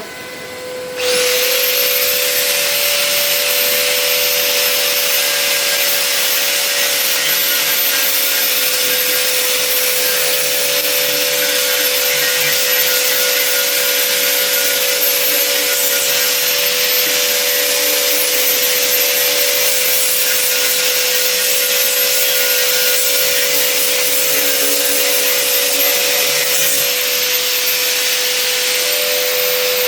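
A handheld electric power tool working against a cast iron pot lid, grinding rust off the metal. It comes up to full load about a second in and runs with a steady whine over a loud hiss.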